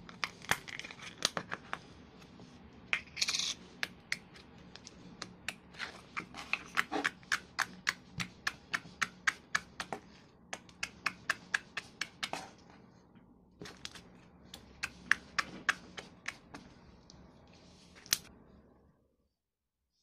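A slime parcel being torn and opened: a run of sharp crackles and clicks, a few a second, with a brief tearing rasp about three seconds in.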